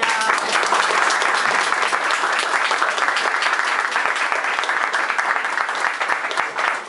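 Audience applauding: a dense round of hand clapping that starts at once, holds loud and steady, and eases a little near the end.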